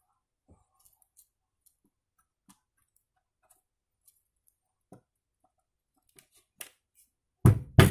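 Faint small clicks of needle-nose pliers and steel nails being handled on a wooden board. Near the end, a claw hammer starts knocking a nail into the wood in sharp, loud blows.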